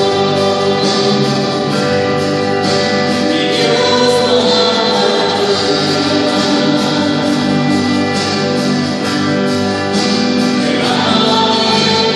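Christian worship music: a choir singing held notes together over instrumental accompaniment.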